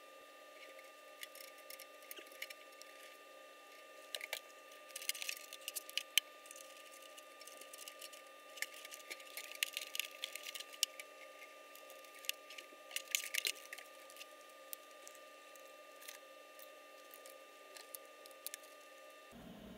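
Faint handling noises, scattered clicks and rustles that cluster in the middle, over a steady thin high tone.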